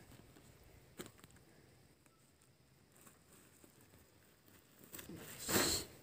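Near silence, with one soft click about a second in and faint rustling near the end.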